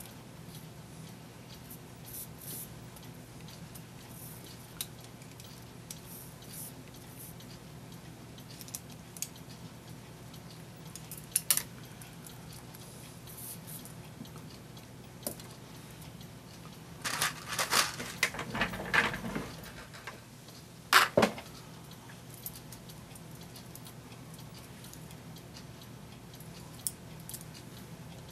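Small metallic clicks and clinks of hand tools and clock parts being handled while a cuckoo clock movement is taken apart. There are scattered single clicks, a busy run of clinks about two-thirds of the way in, then one sharp click.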